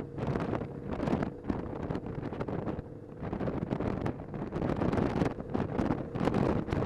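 Wind buffeting the microphone of a camera on a moving motorcycle, in uneven gusts, with the motorcycle's engine running steadily underneath.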